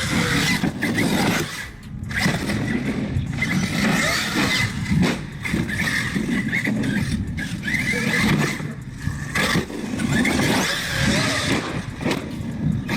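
Radio-controlled cars running, their motors whining and revving up and down in short rising bursts, with tyre and chassis noise.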